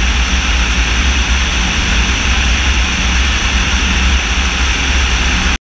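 Steady rush of wind and engine noise on a camera mounted on a military drone's wing in flight, with a heavy low rumble.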